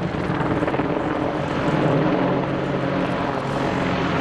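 AH-64D Apache Longbow attack helicopter's rotors and twin turboshaft engines running under display power as it pitches through a steep aerobatic manoeuvre. It is loud and steady, with a low tone that grows stronger about two seconds in.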